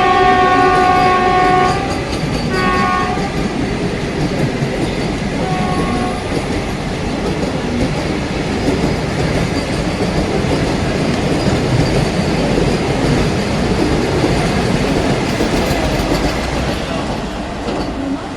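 Vande Bharat Express electric trainset sounding its horn: a long blast that ends about two seconds in, then two short toots. After that comes the steady rush and clickety-clack of the train running on the rails as it accelerates.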